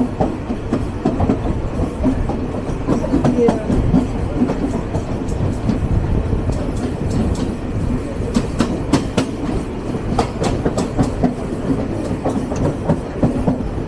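Mumbai suburban local electric trains running side by side on parallel tracks: a steady rumble and clatter of steel wheels on the rails. A run of sharp clicks and clacks comes about halfway through.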